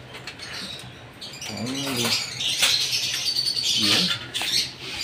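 A group of African lovebirds chattering in high-pitched chirps, growing busier about a second and a half in, with short clicks and rattles from the wire cages being handled.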